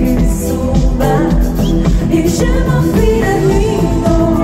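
Rock band playing live and loud: a woman sings lead into a microphone over electric guitar and a heavy, steady beat.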